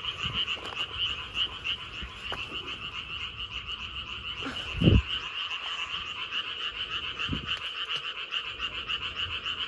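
A steady chorus of frogs calling in fast, pulsing trills. About five seconds in there is a single low splash as a stone is dropped into the water, and the frogs go on calling.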